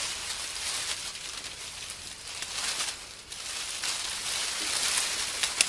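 Hissing rustle that swells and fades every second or so, with a sharp click near the end.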